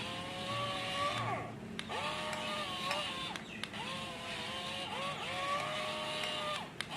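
Excavator working, with a pitched whine that comes and goes in several stretches of a second or two, dipping and gliding in pitch as each movement starts and stops. A few sharp clicks fall between the stretches.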